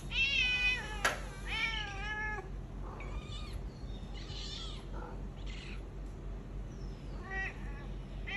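Cat meowing: two loud drawn-out meows in the first couple of seconds, then several fainter, shorter calls, with a sharp click about a second in.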